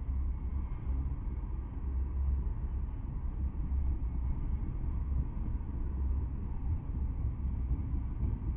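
Loaded tank cars of a long freight train rolling past on the rails, a steady low rumble of wheels on track with no breaks.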